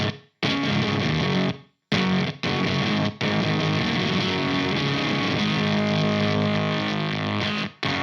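Electric guitar through a Valco Bloodbuzz fuzz pedal, an angry-sounding fuzz: a few short distorted chord stabs that cut off abruptly, then one chord held for about four and a half seconds.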